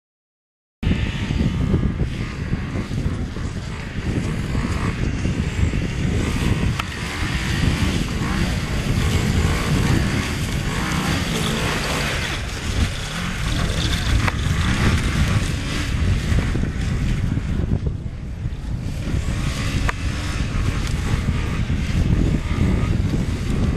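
Snowmobile engine and track running as the sled is driven through a cone handling course, the engine note swelling and easing as it goes. It starts about a second in, after a brief silence.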